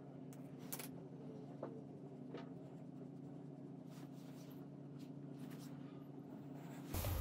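Faint small clicks and rustles of thin electrical wire being stripped and fitted with pliers, over a steady low hum. Near the end a sudden, louder rushing noise starts.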